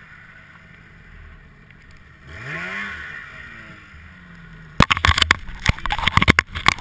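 Polaris RMK snowmobile's two-stroke engine heard from on board, running low and revving up and back down once. About two seconds before the end, a rapid run of sharp knocks and crackles takes over and is the loudest sound.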